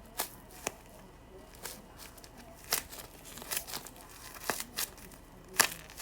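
A homemade squishy made of notebook paper wrapped in cling film crinkling as it is handled and squeezed: a series of irregular sharp crinkles, one or two a second, the loudest near the end.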